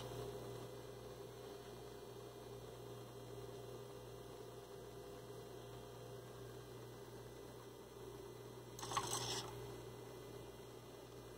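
Faint steady electrical hum, with a short whirr from the robot monkey head's servos about nine seconds in as the head turns to one side.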